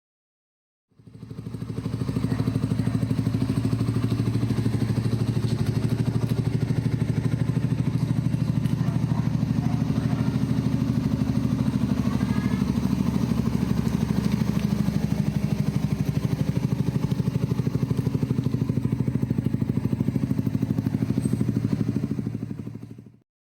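2016 Suzuki Raider 150 Fi's single-cylinder four-stroke engine running steadily at idle through a newly fitted aftermarket exhaust pipe. It fades in about a second in and fades out near the end.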